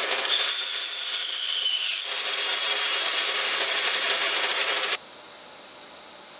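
Bandsaw running and cutting a strip of scrap hardwood to length, with a high whine during the first couple of seconds of the cut. The noise drops off sharply about five seconds in, leaving a low steady hum.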